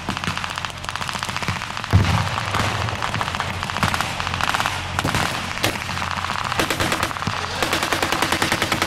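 Blank machine-gun fire in rattling runs of rapid shots, with one heavier bang about two seconds in. A steady low engine hum, from the M22 light tank, runs underneath.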